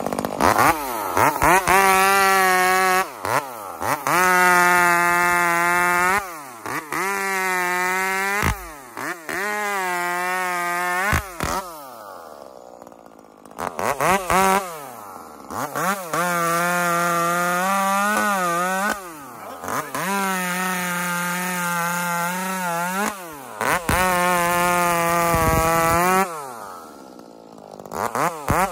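Modified Echo 2511 25cc two-stroke top-handle chainsaw running at high revs, held at a steady high pitch for two or three seconds at a time with quick dips and rises in pitch between, as in a run of short cuts through a sassafras log. It drops back to idle twice, about twelve seconds in and near the end.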